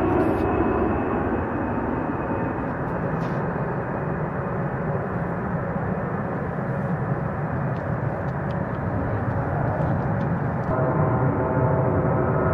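A-10 Thunderbolt II twin TF34 turbofan jet engines running at takeoff power: a steady, loud jet roar. The whining tones of the departing jet fade within the first second, and about 11 s in a fresh set of steady whining tones comes in as the next A-10 rolls down the runway.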